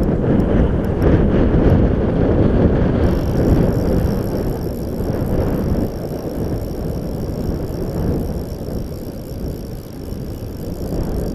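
Wind buffeting the camera microphone over rushing river water: a loud, uneven rumble.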